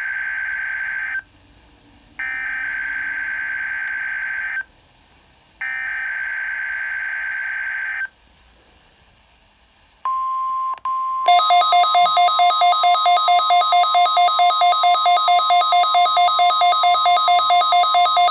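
Midland WR-120 weather radio receiving a NOAA Weather Radio required weekly test: three harsh, buzzing bursts of SAME digital header data, each about two and a half seconds long with a second's gap between them. About ten seconds in, a steady single-pitch alert tone starts. Just over a second later the radio's own alarm begins beeping rapidly over it, about three pulses a second.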